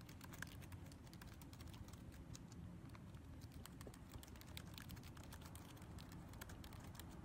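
Faint, irregular clicks of typing, fingertips tapping keys on a device, over a low steady room hum.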